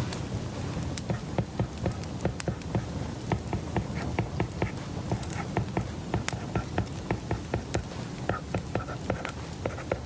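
Irregular light clicks and taps, a few a second, over a steady low hum.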